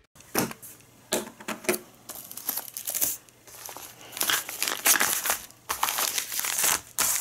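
White plastic-wrapped parcels crinkling and rustling as they are picked up and set down on a wooden table. The sound comes in irregular bursts with a few light knocks.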